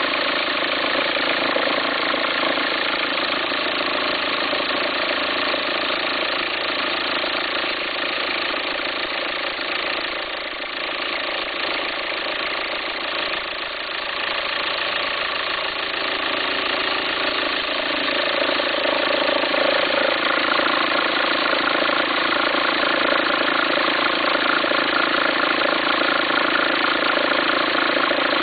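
Volkswagen Passat 1.9 TDI four-cylinder diesel idling with a farting, rumbling noise, growing louder a little past halfway. The accessory belt appears to jump when the noise comes, which the owner suspects is a worn alternator pulley.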